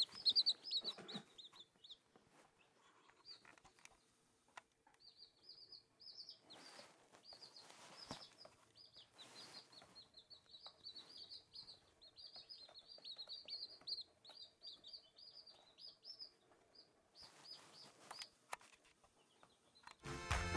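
Newly hatched Silkie chicks peeping: faint runs of short, high chirps, with a pause of a few seconds about two seconds in. Music comes in right at the end.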